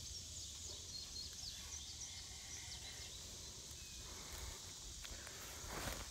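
Quiet outdoor ambience: a steady high insect hiss, with a few faint, short bird chirps in the first two seconds, over a low rumble.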